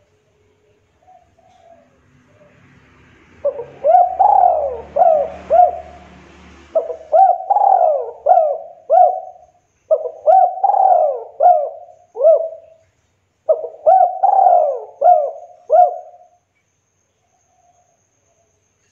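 Spotted dove cooing: four phrases of about five quick coos each, every note rising and falling in pitch, with short pauses between the phrases.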